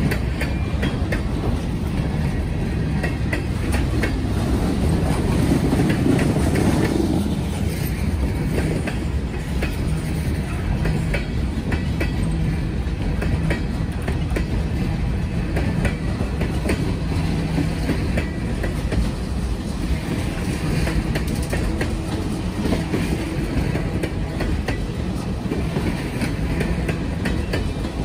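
Freight train cars rolling past close by: a steady rumble of steel wheels on the rails with many sharp clacks as the wheels cross the rail, swelling slightly about six seconds in.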